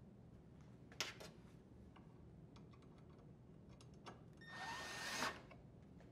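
Cordless drill driver running for just under a second near the end, with a steady whine, as it drives a screw home into the dishwasher's inner door. Earlier there is a sharp click about a second in, followed by a few light taps.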